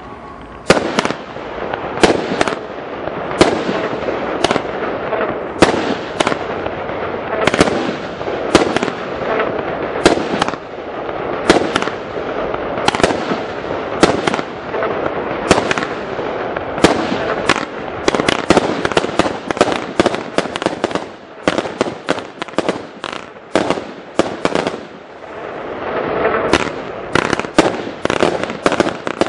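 Aerial fireworks going off: loud sharp bangs of shells launching and bursting, about one every second and a quarter at first, then coming faster and overlapping from about halfway through, with crackling between the bangs.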